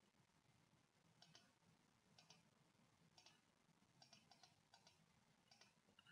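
Faint computer mouse clicks, about seven of them roughly a second apart, three coming closer together about four seconds in, over near-silent room tone.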